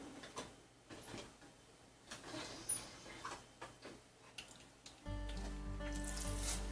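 Quiet kitchen sounds while cooking: irregular clicks and knocks with a soft hiss, under faint background music. About five seconds in, the music swells louder with a deep bass.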